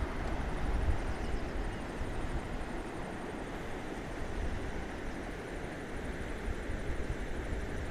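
Outdoor ambience: a steady rushing noise with gusts of wind buffeting the microphone, and a faint high pulsing trill in the background.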